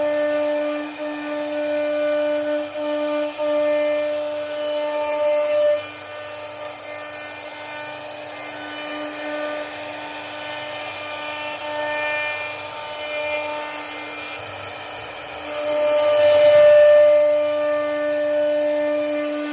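CNC router spindle running with a steady high whine while its bit carves a wooden door panel. The cutting noise drops about six seconds in and swells again near the end.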